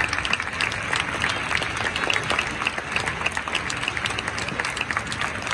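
Football supporters in a stadium applauding: many hands clapping in a dense, even patter.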